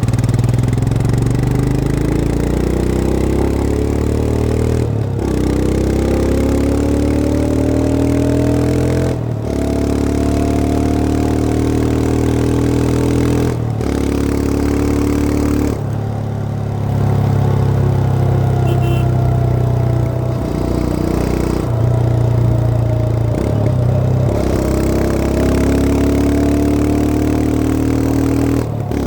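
Royal Enfield Himalayan 411's single-cylinder 411 cc engine heard onboard while riding, the engine note climbing in pitch as it pulls, with several short breaks for gear changes.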